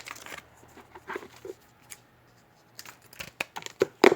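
Baseball trading cards and their pack wrapper being handled: scattered light clicks, taps and rustles, with a quicker run of sharp taps near the end.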